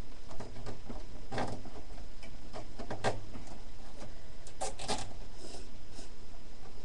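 Plastic zip ties being threaded and pulled through holes in a computer case to mount a fan: scattered small clicks and rustles of the ties and fingers on the case, bunched about a second and a half, three and five seconds in, over a steady low hum.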